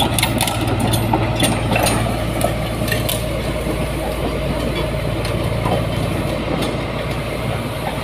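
Komatsu D85ESS-2 crawler bulldozer's diesel engine running steadily, with frequent sharp metallic clinks and clanks over the drone.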